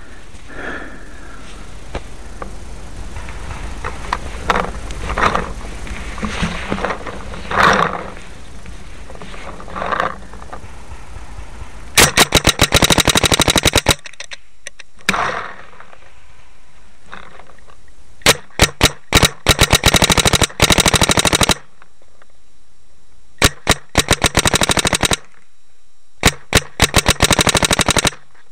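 Paintball marker firing several rapid strings of shots, many per second, in the second half. Before that, steady noise with a few short louder sounds.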